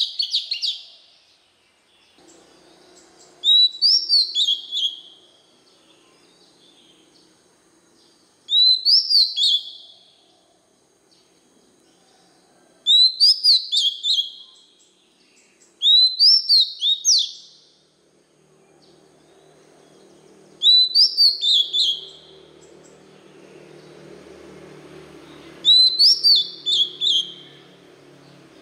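Male oriental magpie-robin singing the same short phrase over and over: a quick run of clear whistled notes that rise, then step down. It comes about six times, one every four to five seconds.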